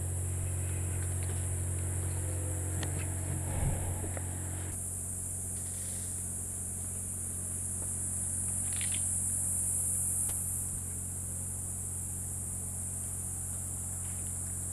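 Steady high-pitched chorus of rainforest insects, swelling for a few seconds in the middle. A low steady hum and a few faint clicks lie beneath it.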